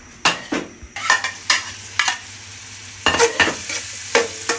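Chopped red onions frying in hot olive oil in a steel pot, sizzling, while a metal spatula stirs them in a series of short scraping strokes against the pot.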